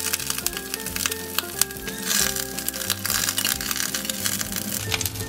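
Background music with held notes and a bass line, over the light sizzle and crackle of a cube of butter melting in hot cooking oil in a stainless steel frying pan.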